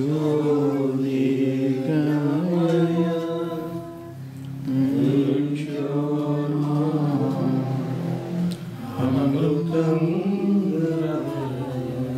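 Group of voices singing a devotional bhajan, in long held phrases over a steady sustained low tone, with brief breaks between phrases.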